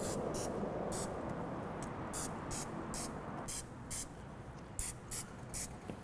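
Aerosol cooking-spray can hissing in short squirts, about two a second and a dozen or so in all, as it coats raw chicken drumsticks.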